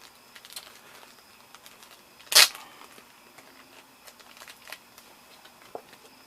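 Hands handling HeroClix figures and cards from a booster pack: scattered light clicks and rustles, with one short loud noise about two and a half seconds in.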